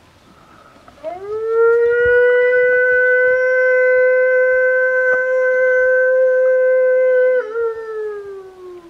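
A man imitating a wolf with one long single howl, the call used to coax wild wolves into answering. It rises at the start, holds one steady pitch for about six seconds, then breaks slightly and slides slowly downward.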